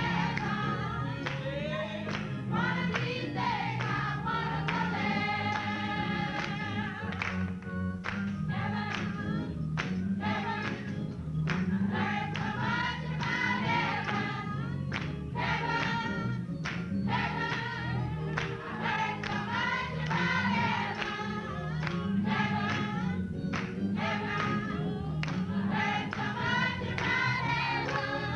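Gospel choir singing a hymn in full voice, with hands clapping along.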